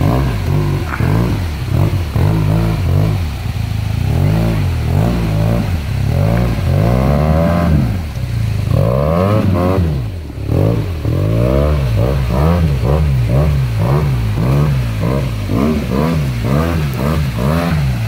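Close ATV engine revving up and down over and over, its pitch rising and falling about once a second, as it picks its way over a rocky trail.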